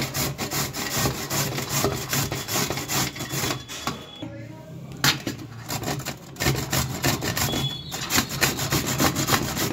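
White radish (mooli) being grated on a stainless steel hand grater: quick rasping strokes of the radish across the metal teeth, several a second. The strokes stop for a moment about four seconds in, a single sharp knock follows, and the grating starts again.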